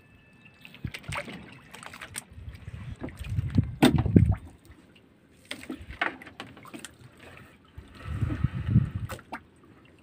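Water sloshing and splashing around a small wooden fishing boat, with irregular knocks and clicks from a wet fishing net being handled aboard. The splashing swells up twice, about four seconds in and again near the end.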